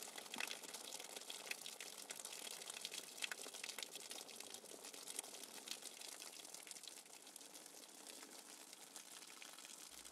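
Faint patter of water drops falling from a cement craft cloud onto plant leaves and a cement pot, a scatter of small ticks that thins out after about six seconds.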